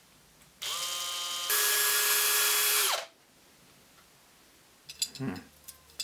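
Cordless drill boring a hole through a plastic e-bike battery-mount cover. It runs in two steps, the second louder, and winds down about three seconds in. A few light clicks near the end.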